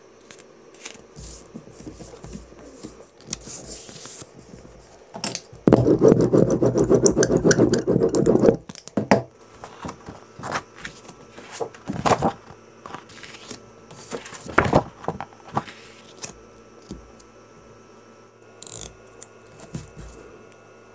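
Hand tools working leather on a workbench: scattered clicks, taps and short scrapes, with one loud, dense scraping about six seconds in that lasts about three seconds.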